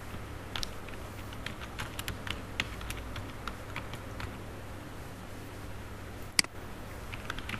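Computer keyboard typing: a quick run of light, irregular key clicks, then a single sharper click about six seconds in, over a steady low hum.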